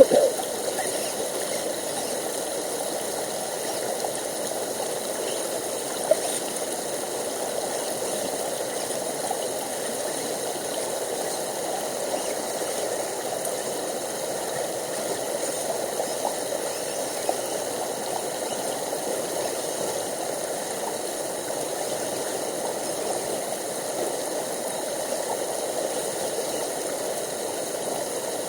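A brook running with a steady rushing sound, with a few faint clicks now and then.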